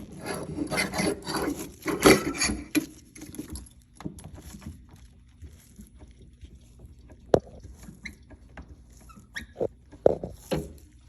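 A Viking Arm lever lifting jack being worked under a refrigerator, creaking and squeaking for about three seconds as it raises the fridge, then a few separate knocks or clicks.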